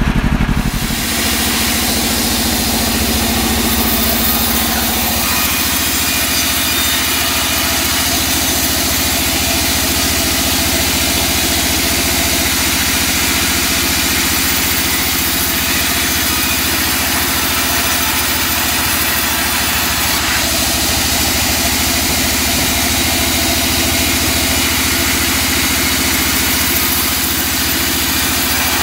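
Vertical band sawmill running steadily, its blade and drive making a continuous, even machine noise while a teak log is worked at the blade.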